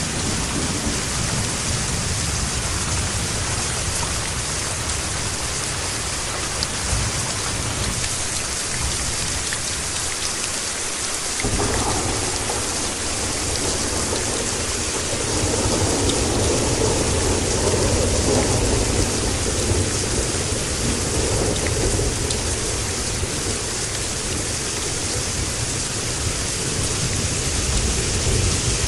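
Steady rain with low rolling thunder; a rumble sets in about halfway through and swells for several seconds before easing.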